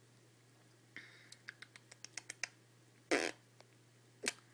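A run of faint light clicks, a short louder rustle about three seconds in and one sharp click near the end, over a low steady hum: small handling or mouth noises close to the microphone.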